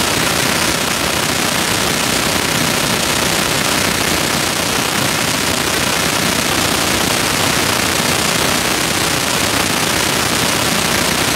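Steady noise of an indoor swimming-pool hall during a race: spectators and splashing blurred together into one loud, even hiss with no separate sounds standing out.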